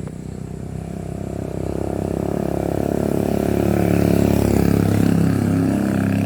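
A motor vehicle's engine running and growing steadily louder as it draws near, loudest about four to five seconds in.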